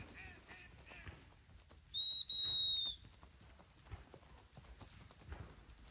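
A whistle blown with a steady, high, single pitch, two blasts about two seconds in: a short one, then a longer one of about half a second. This is the kind of whistle signal used on a driven shoot or to work gundogs.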